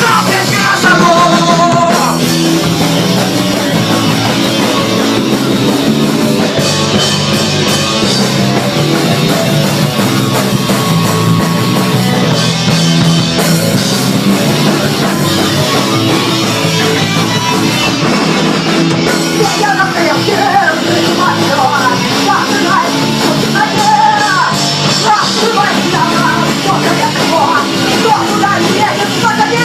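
Loud rock band music in a punk style: electric guitars, bass and drums playing without a break. A voice or lead line comes in over the second half.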